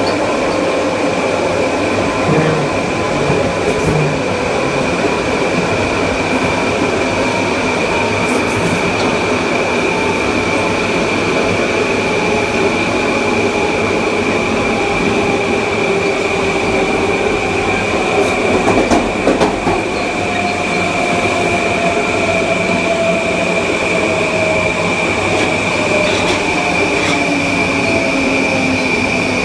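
Kawasaki M9 electric multiple unit's IGBT-VVVF inverter and AC traction motors running under a car, over rail and wheel noise with a steady high whine. Several motor tones fall slowly in pitch through the second half as the train slows.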